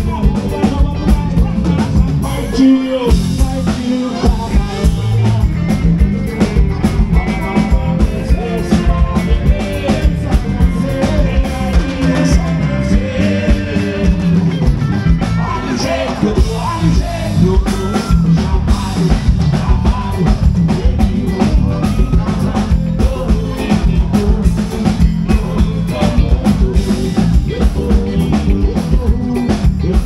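Live band music: a drum kit keeps a steady beat under singing.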